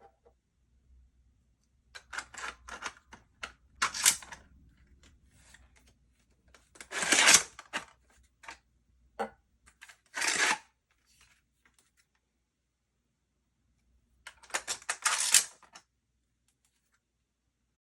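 Nerf Spring Thunder shell-ejecting toy blaster being handled: bursts of plastic clicks and rattles from working its action and shells, the loudest a burst about seven seconds in.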